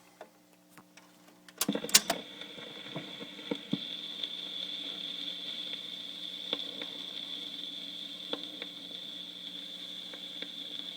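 A stylus set down on a vinyl LP: a few sharp clicks about two seconds in, then the steady hiss of the lead-in groove with scattered ticks and crackles.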